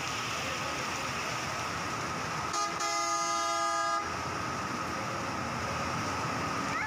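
A vehicle horn sounds one held blast of about a second and a half, a little under three seconds in, over the steady hiss of heavy rain and traffic.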